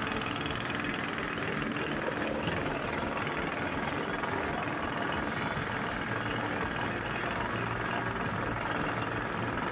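A bulldozer's engine running steadily.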